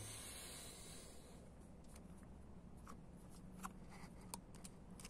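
Near silence: faint room tone with a low steady hum and a few faint light clicks in the second half.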